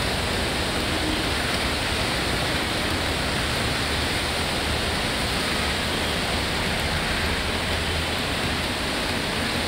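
Steady hiss of heavy monsoon rain and tyres on a wet, busy road, with a low traffic rumble underneath and no distinct horns or engines standing out.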